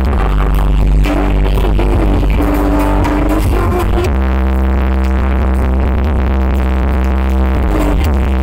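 Electronic dance music playing loud through a carnival 'sound horeg' rig of stacked speaker cabinets, dominated by a heavy, steady bass. The bass line changes to a new note about four seconds in.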